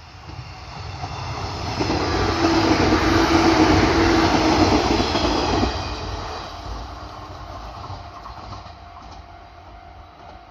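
An electric train passing close by: it builds over about two seconds, runs at its loudest for a few seconds with a steady tone over the top, then fades away.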